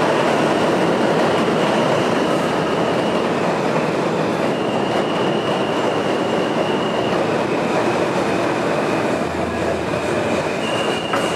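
R160 subway train running on the elevated track, with loud, steady wheel-on-rail noise. High, held squeals from its wheels come and go throughout.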